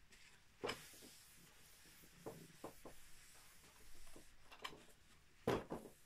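A chalkboard being wiped clean by hand with a cloth: faint rubbing with a few soft knocks, the loudest near the end.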